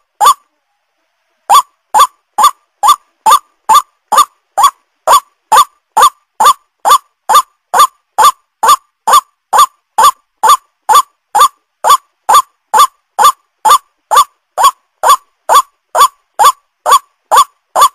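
White-breasted waterhen (ruak-ruak) calling over and over at an even pace, about two short calls a second, as played for a bird lure. After a brief pause near the start the calls resume and go on without a break.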